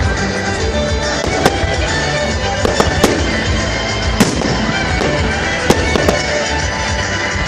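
Fireworks bursting overhead: about half a dozen sharp bangs, irregularly spaced, over music playing throughout.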